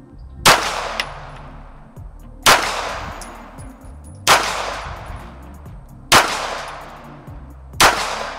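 Five 9mm shots from a full-size Dan Wesson DWX pistol, loading 124-grain ammunition, fired one at a time about two seconds apart, each with a ringing tail that fades away. The string empties the magazine.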